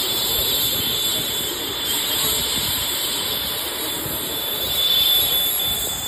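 Small jet aircraft's turbine engine running as it taxis, a steady high whine over a rushing noise, a little louder about five seconds in.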